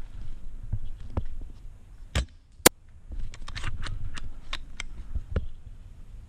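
A single sharp snap of an Action Army AAC T10 spring-powered bolt-action airsoft sniper rifle firing, about two and a half seconds in, followed by a string of short clicks and knocks.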